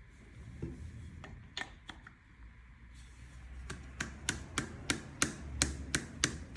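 A few scattered sharp clicks, then from about halfway in a quick, even run of clicks or taps, about three a second.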